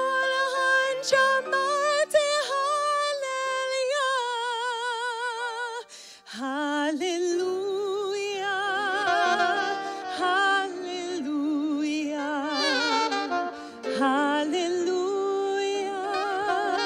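Live ensemble music with a woman singing long, wordless held notes with a strong vibrato; about six seconds in the music briefly dips, then resumes on lower notes.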